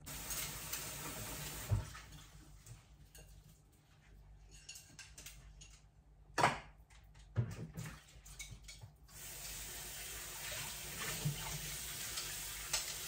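Kitchen tap running into the sink while dishes are washed by hand. The water runs for a couple of seconds, then dishes knock and clatter, the loudest about six and a half seconds in, and the water runs steadily again from about nine seconds on.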